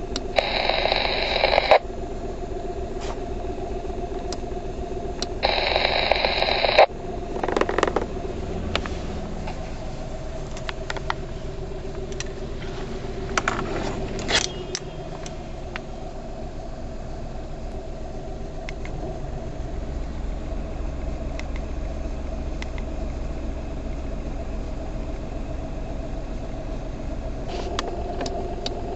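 Amateur radio transceiver's speaker giving out steady hiss and hum with faint steady tones. Twice a louder burst of static about a second and a half long opens and then cuts off sharply.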